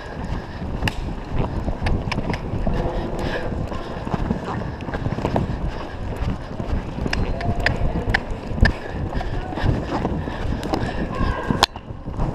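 Horse cantering on arena sand, heard from a camera riding on horse and rider: a steady wind rumble on the microphone with the beat of hooves and frequent sharp clicks of tack. One loud click near the end.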